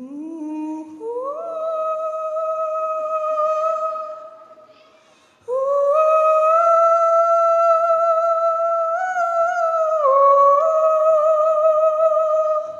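A young male singer's wordless high howl into a microphone, with no guitar heard. His voice glides up into a note held for about four seconds, then after a short break holds a second long high note for about seven seconds, dipping briefly near the end.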